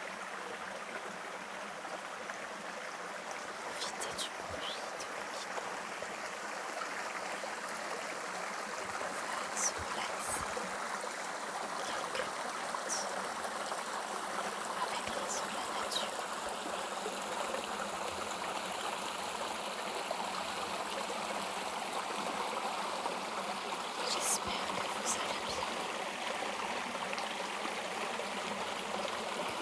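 River water flowing steadily over stones in a continuous rushing babble, with a few brief, faint high ticks now and then.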